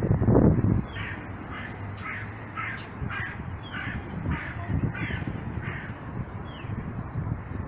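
A bird calling in a quick run of short repeated calls, two to three a second for about five seconds, over low street noise; a brief loud low noise comes just before the calls begin.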